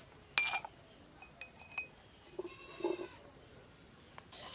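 A sharp clink near the start, then an animal bleating briefly about two and a half seconds in.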